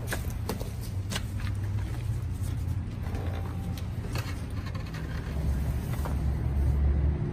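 An engine running steadily with a low drone that gets louder in the second half, with scattered clicks and knocks.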